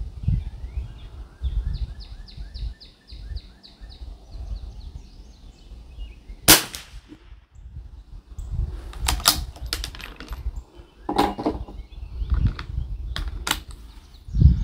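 A single sharp crack of a .22 LR rimfire rifle shot from an Anschutz 1761 bolt-action, firing SK Standard Plus ammunition. It comes about six and a half seconds in and is the loudest sound. Several lighter sharp clicks and knocks follow over the next several seconds, over a low rumble.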